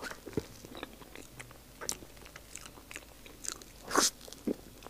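Close-miked eating sounds of biting and chewing a soft matcha mille-crêpe cake: scattered short mouth clicks, the loudest about four seconds in.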